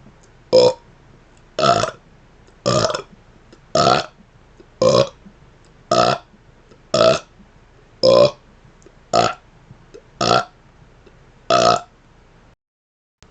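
A man burping in a string of eleven short, even burps, about one a second, stopping a little before the end.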